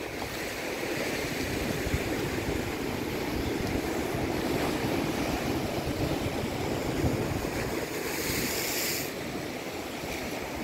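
Sea waves surging and washing over a rocky shore, a steady wash of surf, with a brief higher hiss of water near the end.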